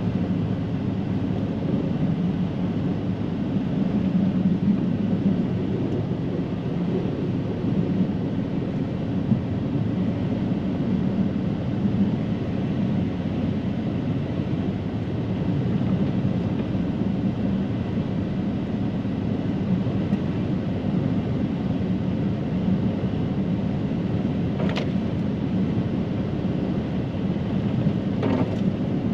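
Snow plow truck's engine running steadily while plowing heavy, wet snow, with two brief clicks near the end.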